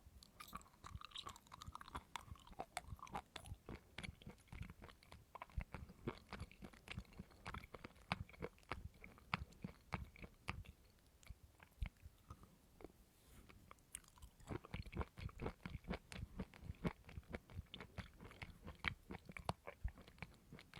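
Close-up chewing of coconut meat: a dense, irregular run of crunchy, wet clicks and crackles from the mouth, thinning briefly a little past halfway.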